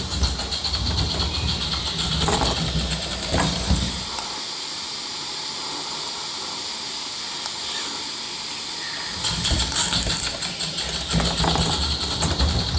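Small live steam model locomotive on vintage Hornby O gauge track: its wheels rumble on the rails along with the hiss of steam. About four seconds in the rumble stops and only a steady steam hiss is left for about five seconds, then the rumble of the running locomotive comes back.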